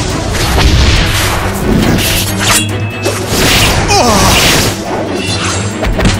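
Background music with fight sound effects: several whooshes and crashing impacts.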